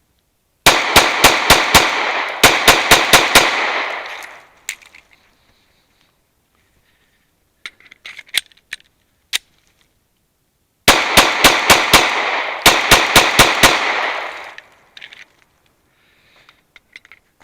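Glock 43X 9mm pistol fired rapidly: two strings of about ten shots each, every string split into two quick groups of five. Between the strings, about eight to nine seconds in, come a few short clicks as the magazine is changed.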